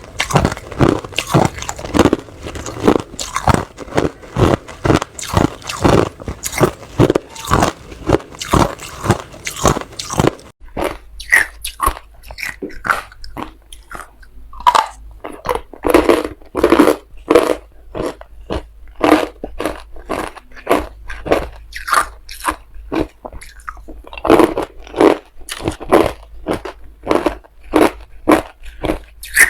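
Hard ice being bitten and chewed close to the microphone: a rapid run of sharp crunches, then, after a change about ten seconds in, slower, separate crunches with short gaps between bites.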